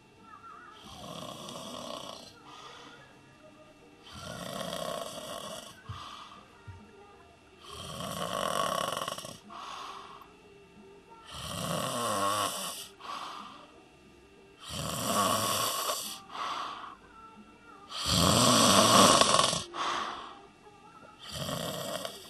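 A person snoring heavily after drinking a six-pack of beer. Seven loud, rasping snores come about every three and a half seconds, each followed by a shorter, quieter breath, and they grow louder toward the last few.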